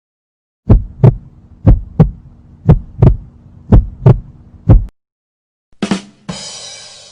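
Heartbeat sound effect: low thumps in lub-dub pairs, about one beat a second, five beats. About six seconds in, a different effect starts with a short hit and a bright, fading crash.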